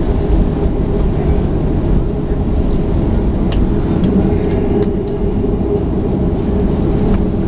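Cabin noise of a Boeing 737-500 taxiing: a steady low rumble of its CFM56-3 engines at taxi idle and the landing gear rolling over the taxiway.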